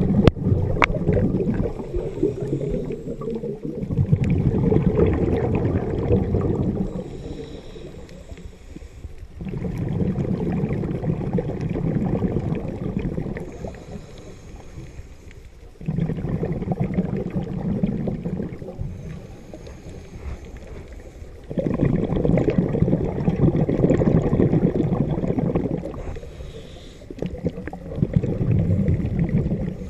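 Scuba diver breathing underwater through a regulator. Long bursts of exhaled bubbles come about every six seconds, each lasting three to four seconds, with quieter stretches between for the inhales.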